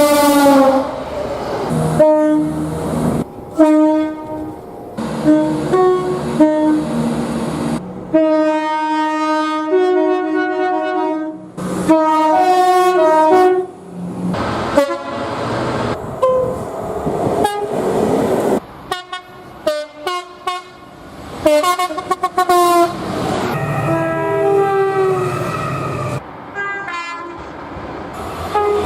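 Train horns sounding one after another in quick cuts, each a chord of several pitches held for a second or two before it breaks off abruptly into the next. Late on, one horn drops in pitch as the train passes.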